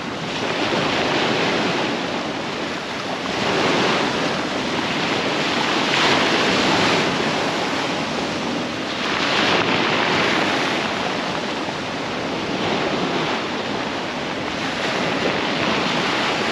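Surf breaking and washing up a shingle beach, swelling every two to three seconds, with wind buffeting the microphone.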